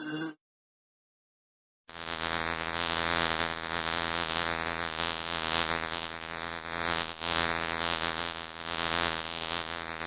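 Honeybees buzzing: a steady, pitched drone with a hissy edge, swelling and fading in loudness. It starts about two seconds in, after a short silence.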